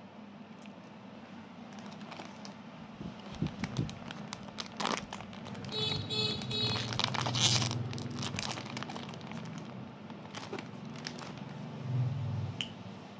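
Clear plastic wrapper around a slice of sponge cake crinkling and rustling as it is handled, loudest about seven seconds in. A low rumble runs underneath around the middle and again near the end.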